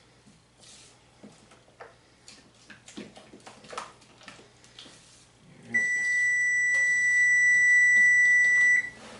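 A spoon scraping and clinking in a mixing bowl as a thick sauce is stirred. About six seconds in, a loud, steady, high electronic beep from a kitchen appliance sounds for about three seconds and then cuts off sharply.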